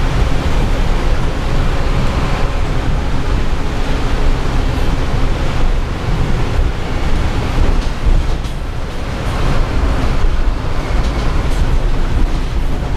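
Mercedes-Benz city bus driving through heavy rain, heard from the driver's seat: a steady engine and road rumble under a constant hiss of rain and water spraying from the tyres on a flooded road.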